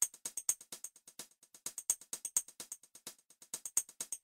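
A small group of people clapping their hands, many separate claps close together and uneven.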